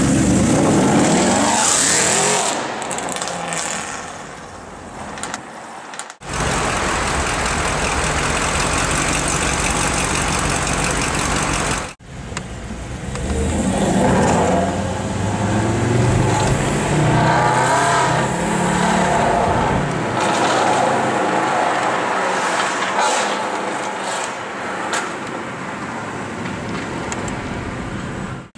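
Mercedes-Benz SLS AMG V8 through a Supersprint aftermarket exhaust, revving and accelerating in several edited clips, with rising and falling engine pitch. The sound cuts off abruptly twice, and one stretch between the cuts is a steady loud rush. Later parts are heard from a following car.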